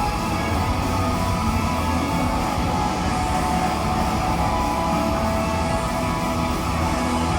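Loud pop-rock music with electric guitar, played live over a venue's sound system.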